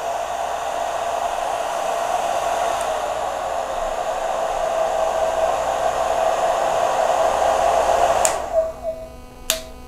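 A hair dryer, powered from a portable power station's inverter, runs steadily on its low setting. About eight seconds in there is a click, and the dryer winds down and stops: the power station's overload protection is cutting the output as the dryer is pushed to a higher setting. A second click follows about a second later.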